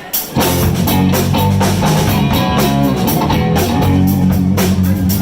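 Live blues band playing loudly: guitar, bass and drum kit. After a short break right at the start, the whole band comes back in together and plays on with a steady beat.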